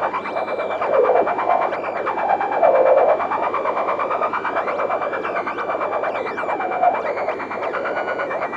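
Negistor Cracklebox DIY noise and drone generator, run through a dual auto-filter, giving a dense crackling buzz over a steady high whistle tone. The filtered middle swells and sweeps up and down, loudest about three seconds in.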